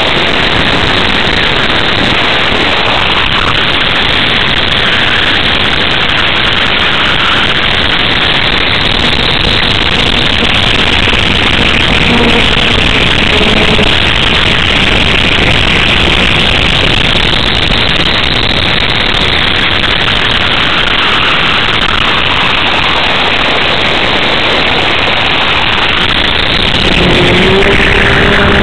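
Easy Star RC model plane's electric pusher motor and propeller, heard with air rushing over the onboard camera's microphone as a loud, steady rush in flight. A low steady hum joins near the end.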